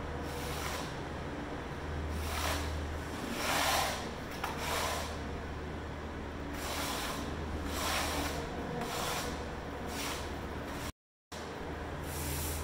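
Trowel scraping Titebond wood glue across an embossed aluminum diamond plate panel: about nine rasping spreading strokes at uneven intervals, over a steady low hum. The sound cuts out briefly near the end.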